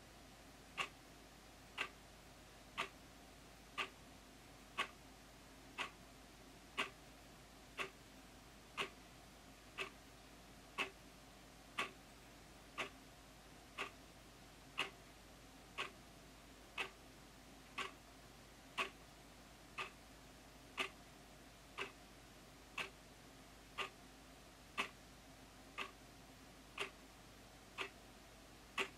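Analog wall clock ticking with a loud, sharp tick, one tick per second as the second hand steps.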